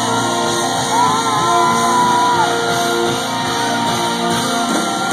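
Live rock band with trumpet and trombone playing loudly in a hall, a long wavering held note about a second in, with shouts from the crowd.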